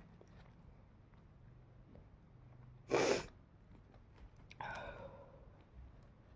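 A person sneezes once, sharply, about three seconds in. A second and a half later comes a short voiced sound that falls in pitch, like a sigh.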